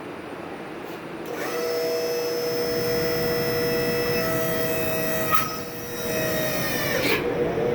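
A hose crimping machine's motor runs with a steady whine while it presses a crimp fitting onto a 1/4 inch hydraulic hose. About five seconds in there is a click and the whine drops away, then the machine runs briefly again before stopping.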